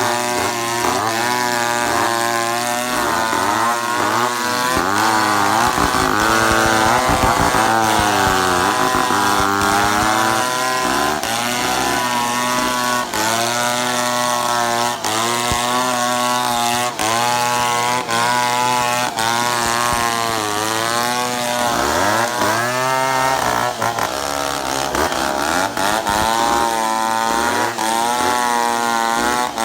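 Chainsaw running throughout, its engine pitch rising and falling over and over as the revs drop and pick up again while it cuts wood.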